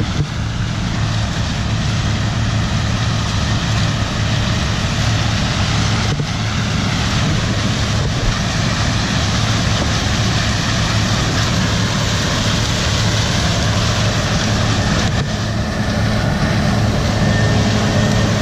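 Farm machinery engine running steadily: a constant low hum under a dense rushing noise.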